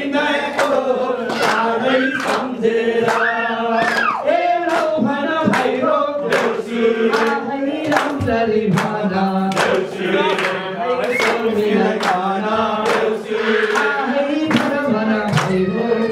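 A group of people singing together in a chant-like, call-and-response style, over steady hand claps about twice a second.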